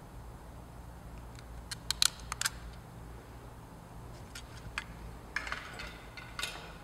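Surgical skin stapler firing while closing the skin: sharp mechanical clicks, a quick cluster about two seconds in and softer clicks and handling sounds later, over a faint low hum.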